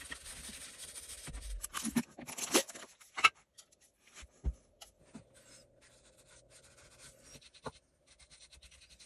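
Hands wiping down a bare pine plane holder: scratchy rubbing for about three seconds, then a sharp click and a dull knock, then faint light scraping.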